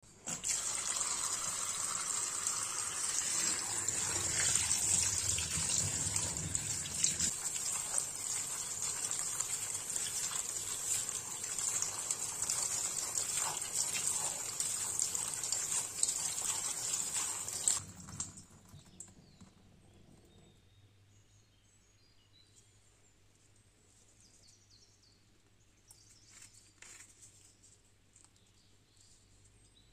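Tap water running hard onto plums in a stainless steel colander in a sink, a steady splashing rush that cuts off sharply a little past halfway. After it, only faint, brief sounds of the wet fruit being handled.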